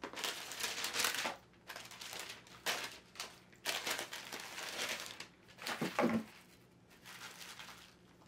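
Tissue paper rustling and crinkling in a string of irregular bursts as a shoe box is opened and its wrapping and a cloth dust bag are pulled out. A brief voice sound about six seconds in.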